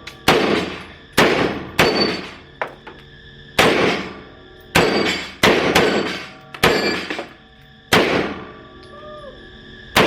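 Firearm fired in single shots, about nine in all at uneven intervals, each a sharp report trailing off in a short echo.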